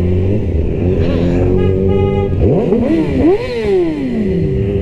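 Sport motorcycle engine running steadily at low revs, then revved up and let back down a couple of times about halfway through, the pitch rising and falling over roughly two seconds.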